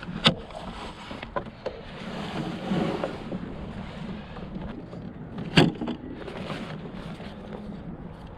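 Small sailboat under way: a steady wash of water and wind, with a few sharp knocks from the boat's rig and hull. The loudest comes about five and a half seconds in.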